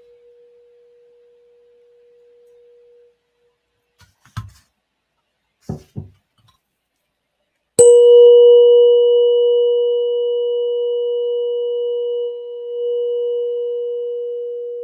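The last of a tuning fork's ring dies away over the first few seconds, then a few soft knocks follow. About eight seconds in the fork is struck once with a rubber-headed mallet and rings loud and steady with a faint higher overtone, slowly fading.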